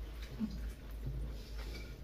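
Quiet dining-room tone with faint small ticks of hands and tableware at a meal, and a brief low murmur about half a second in.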